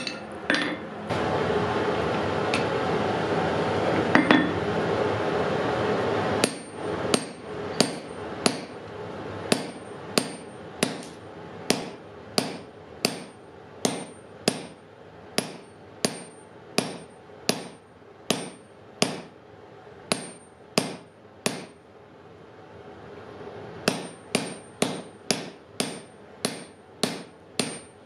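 A steady rushing noise for the first few seconds, then hammer blows on the top die of a spring fuller holding a red-hot wrought iron bar on the anvil, necking the bar. The blows come about one and a half a second, each with a high metallic ring, pause briefly near the end and then resume faster.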